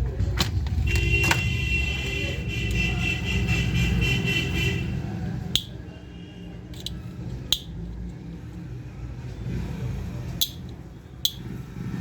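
Battery-powered toy gun's electronic sound effect: a steady buzzing, alarm-like tone that lasts about four seconds and stops about five seconds in, followed by several sharp clicks, over a low rumble.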